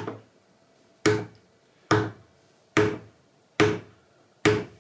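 Mallet striking a 1/16-inch hole punch through leather: a steady row of sharp knocks, a little less than a second apart, five or six blows in all.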